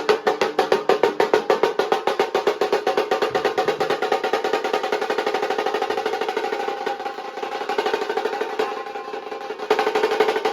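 Nasik dhol drumming: a fast, even run of drum strokes. The beat loosens and drops in level about two-thirds of the way through, then comes back louder near the end.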